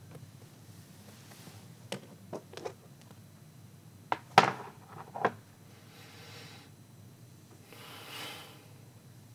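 A few light knocks and clicks, the loudest about four and a half seconds in, followed by two soft hissing swells.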